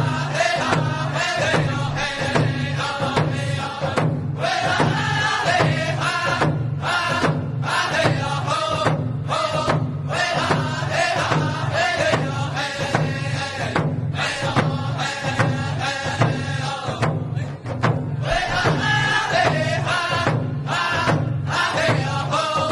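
Music: chanted singing over a steady low beat.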